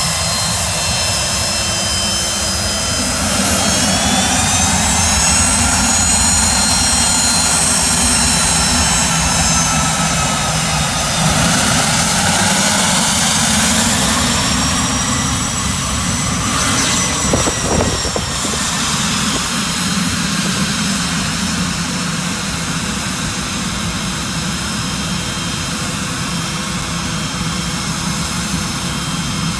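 Pilatus PC-24 business jet's twin Williams FJ44 turbofans running at taxi power as the jet taxis past and turns onto the ramp. It is a steady rumble under a high whine, and the whine bends up and then back down in pitch through the first half.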